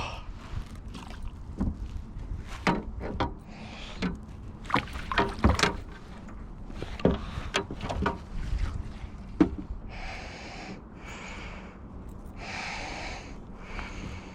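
Scattered knocks and clatter of handling gear and a caught pike in a kayak, then a run of breathy puffs about a second apart near the end.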